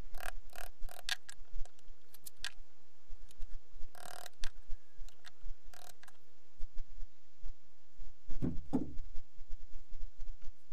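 Hammer striking a wood chisel to chop out a joint in a piece of itoba wood: a run of sharp taps in the first couple of seconds, a few more spaced strikes after, and a dull knock about eight seconds in.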